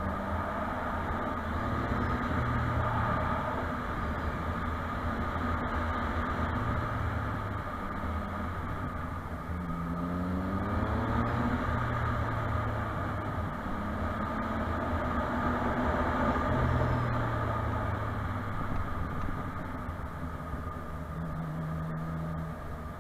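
Motorcycle engine running under way, its pitch rising and falling as the rider changes speed, with a climb in revs about ten seconds in.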